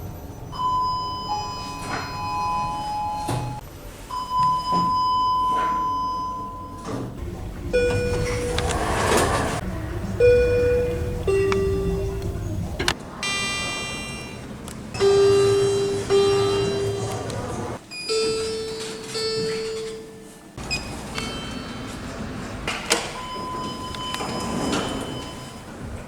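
A run of short elevator clips: electronic chimes and beeps, some single steady tones and some falling two-note chimes, with a whoosh of car or door noise between some of them. The sound changes abruptly from one clip to the next.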